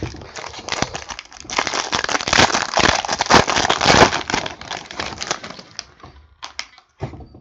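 Foil wrapper of a trading card pack crinkling and crackling as it is handled and torn open, loudest from about a second and a half to four and a half seconds in, followed by a few light clicks.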